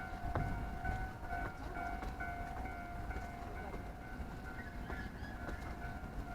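Japanese railway level-crossing alarm ringing its repeated electronic ding over the low rumble of a train on the tracks.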